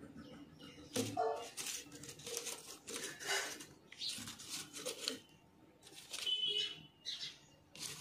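Paper rustling and rubbing as a glue stick is worked over a folded paper fan and the fan is pressed onto a card, in a series of short bursts.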